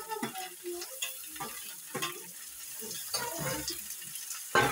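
Chopped round gourd (tinda) tipped off a steel plate into a kadhai of hot oil with fried onion and garlic, a steel spoon scraping the plate and clinking against the pan while the pan sizzles. One louder clank near the end.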